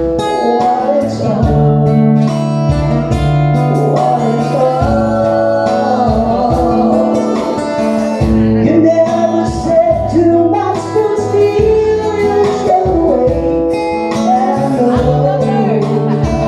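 Live band playing a song with guitar and a steady beat, a voice singing over it.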